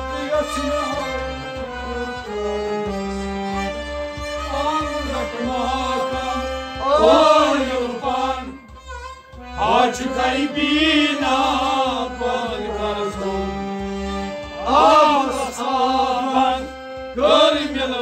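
Kashmiri Sufi devotional song (kalam): a male voice singing in phrases over sustained harmonium chords, with a steady low beat underneath.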